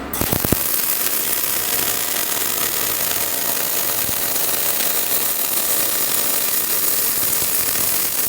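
Welding arc crackling and hissing steadily. It starts suddenly with a few sharp clicks.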